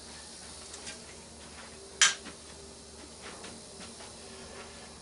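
A single sharp clink about two seconds in as a salvaged piece is put down, among faint handling clicks.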